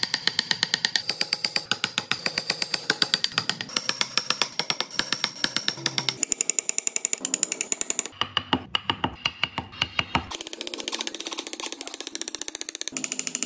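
Rapid steady tapping of a hammer on a carving chisel as it cuts into wood, about five strikes a second, each with a short metallic ring. The taps come quicker near the end.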